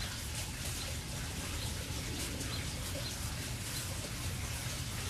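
Outdoor ambience: a steady low rumble with small, high bird chirps now and then.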